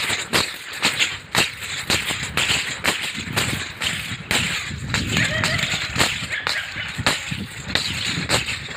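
Silambam staff twirled fast, swishing through the air in a quick, irregular run of sharp whooshes.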